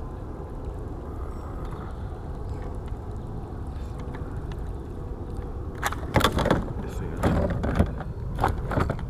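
Steady low rumble, then from about six seconds in a run of sharp knocks and clatter: gear being handled against the plastic hull of a fishing kayak.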